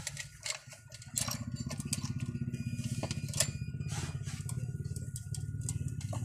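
Saw chain links clicking and rattling as a new Stihl chain is fitted around the guide bar by hand. From about a second in, an engine runs steadily underneath as a low, pulsing hum.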